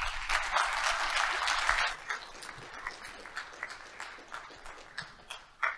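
Audience applauding at the end of a talk: dense clapping for about two seconds, then thinning into scattered claps that die away.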